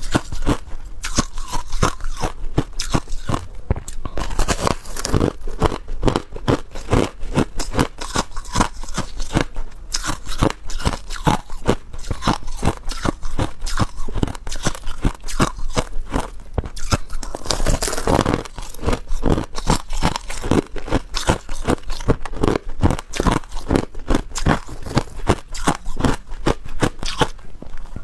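Crushed ice being bitten and chewed: a steady run of crunches, several a second, with a longer grinding crunch about eighteen seconds in.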